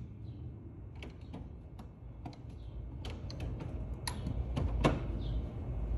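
Socket wrench ratchet clicking irregularly while a spark plug is worked loose, the clicks growing louder and more frequent toward the end, over a low rumble.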